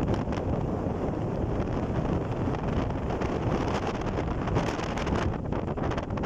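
Strong wind buffeting the microphone: a dense, steady low rumble with gusty flutter.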